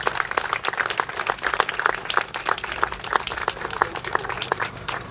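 A small crowd applauding, the clapping dying away near the end.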